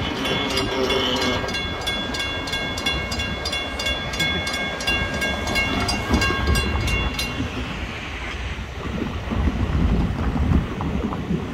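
Railroad crossing bell ringing about three times a second while the gate arms rise, stopping about seven seconds in, over the low rumble of a train.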